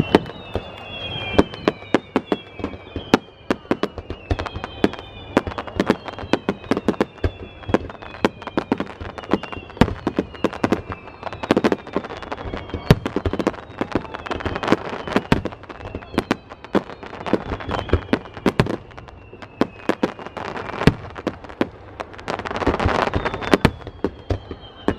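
Aerial fireworks going off in rapid succession: many sharp bangs and crackles, with repeated descending whistles throughout.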